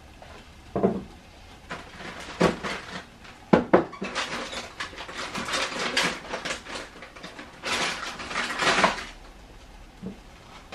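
Kitchen dishes and utensils being handled: a few separate knocks and clinks, then a dense run of rapid clattering and scraping in the middle that dies down near the end.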